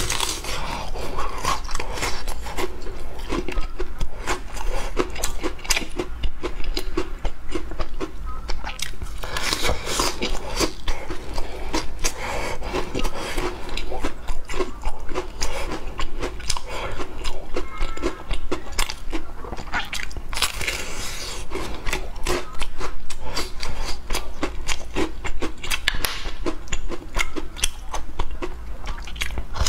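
Close-miked biting and chewing of chocolate-biscuit-topped pumpkin cakes: crisp crunching of the biscuit mixed with soft, moist chewing of the cake, going on in repeated bouts with louder stretches.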